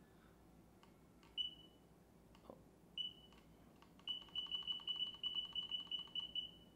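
Electric unicycle's menu beeper: two single short high beeps, then a fast even run of beeps, about six a second, as a display button is held to scroll a setting value upward. Faint button clicks come between the beeps.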